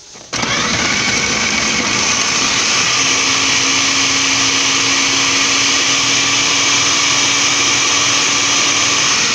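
Philco food processor's motor starting abruptly about a third of a second in and running steadily at full speed, its standard chopping blade grinding raw chicken breast fillets into mince. A steady hum joins the whir about three seconds in.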